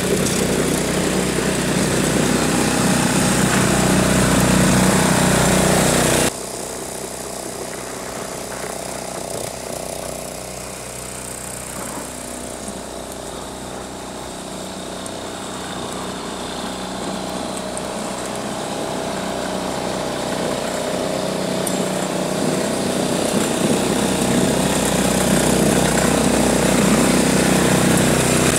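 Small engine of a Wolf-Garten ride-on garden tractor running steadily while it pushes snow with a front blade. It drops off sharply about six seconds in, stays quieter while the machine is farther off, then grows louder again as it comes back close near the end.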